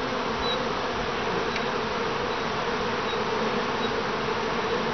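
Honey bees buzzing steadily in flight around a hive entrance, a dense, even hum of many bees.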